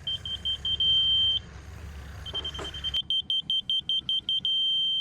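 Laser level receiver beeping in a high tone: a run of quick beeps that settles into a steady tone, which on such receivers signals on-grade. After a short pause it repeats, quick beeps again, then a longer steady tone near the end.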